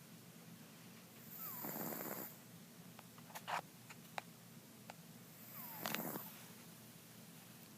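A sleeping domestic cat snoring, two snores about four seconds apart, with a few short clicks between them.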